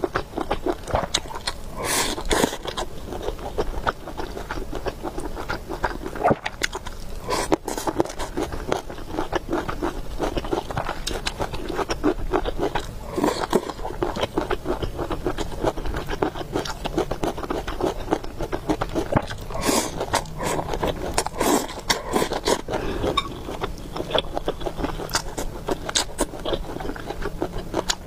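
Close-miked eating: a person chewing food, a dense run of small wet mouth clicks and crackles that now and then grows louder for a moment.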